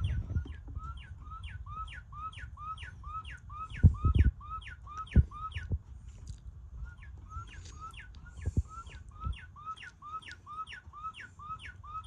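Singing bird wall clock playing its recorded northern cardinal song through its small speaker: a fast run of the same slurred whistled note, about three a second, with a short break a little after the middle. A few low knocks come in between.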